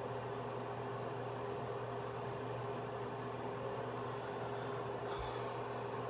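Steady background hum and hiss, with a low drone and a fixed mid tone running throughout. A little after five seconds in there is a brief soft rustle with a low bump.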